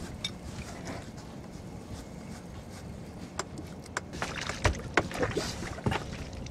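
Spinning reel being worked, with tackle clicking and knocking in a fishing boat, over a steady low hum. The sharp clicks and knocks gather in the second half.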